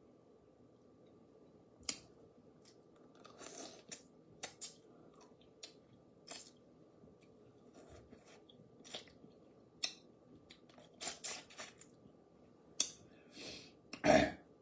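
Crawfish being eaten: shells cracked and pulled apart by hand, with chewing, as irregular sharp cracks and short crunchy rustles. A louder, longer noise comes near the end.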